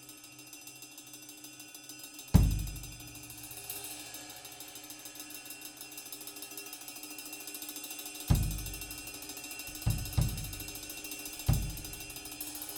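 Sound check of a drum kit: single, spaced-out strokes on a low drum, each ringing off. There is one hit about two seconds in, then four more near the end, two of them in quick succession, over a faint steady hum.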